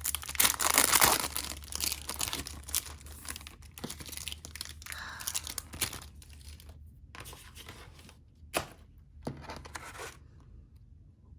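A mail package being torn open by hand, with loud tearing and crinkling of the packaging in the first seconds, then lighter rustling and a few sharp crinkles and clicks as the contents are handled.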